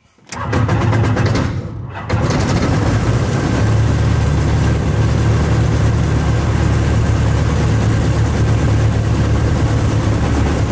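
KFA Bushbaby light aircraft's engine being started with choke on a cold engine: the starter cranks it for about two seconds, then it catches and settles into a steady idle.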